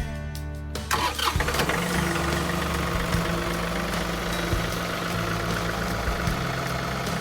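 An engine starting about a second in and then running steadily, with music playing along.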